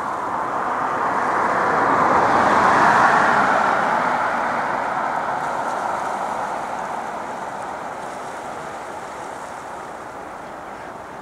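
Airbus A320's IAE V2500 turbofan engines running at taxi power as the jet turns to line up on the runway: a broad jet rush that swells for about three seconds, then slowly fades.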